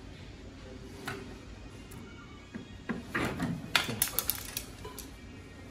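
Clicks and knocks of a copier fuser belt unit's metal end bracket being handled and fitted by hand: one click about a second in, then a quick cluster of sharp clicks and rattles from about halfway through.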